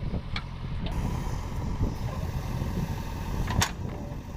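JCB 3DX backhoe loader's diesel engine running steadily, with a few sharp knocks, the loudest about three and a half seconds in.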